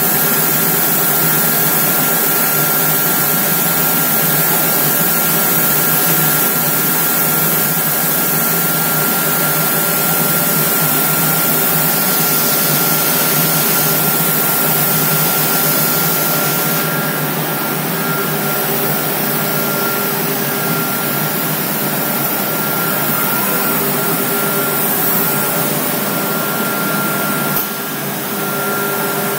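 Homag CNC machining centre running: a steady whine over a loud, even hiss. About halfway through, the hiss loses some of its top end, and there is a brief dip in level near the end.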